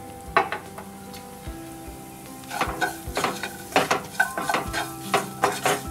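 Chopped onions and green chillies sizzling in oil in a nonstick pan, with a wooden spatula scraping and stirring them. The stirring strokes come about twice a second from about two and a half seconds in.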